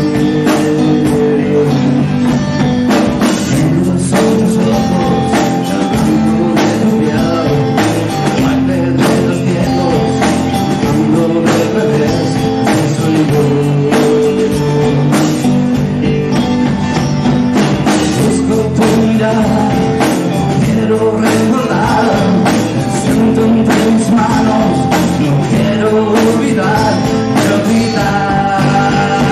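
Music: a song with singing over instruments and a steady beat.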